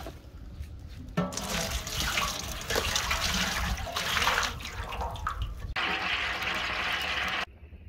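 Cooking oil poured in a thick stream from a plastic bucket into a large empty aluminium pot, splashing and gurgling against the metal; it starts about a second in. Near the end it gives way to a steadier hiss before cutting off suddenly.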